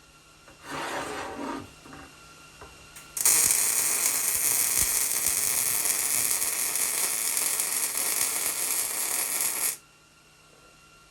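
MIG welder arc laying a weld on steel, a steady crackling hiss that starts abruptly and cuts off sharply after about six and a half seconds. A short scraping noise comes about a second in.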